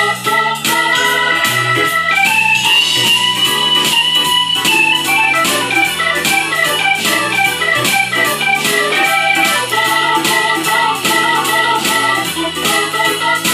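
Korg Pa600 arranger keyboard playing a blues, a Hammond-style organ voice carrying the melody with held and bent notes, over a steady beat and a stepping bass line.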